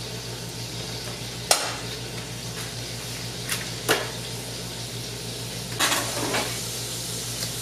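Steady sizzle of food cooking on the stove over a low steady hum, broken by a few sharp clicks and clinks of a knife against a saucepan and then the counter as butter is cut into a pot of broccoli and the knife is set down.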